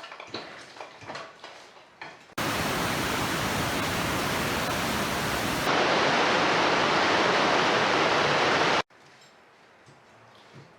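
A loud, even rushing noise that starts suddenly a couple of seconds in, steps up louder about halfway through, and cuts off abruptly near the end, after a few faint ticks at the start.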